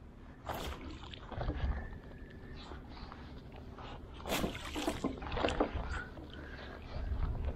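Water sloshing and splashing around a small boat, with irregular splashes and knocks, louder about half a second in and again around the middle, over a low rumble.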